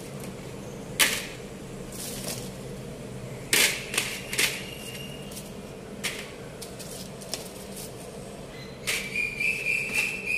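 Crisp, light fried pieces clicking and rustling as they are handled and dropped one by one into a plastic tray, several sharp clicks spread out and a quick run of them near the end, over a steady low hum. A thin high whistle-like tone sounds briefly near the end.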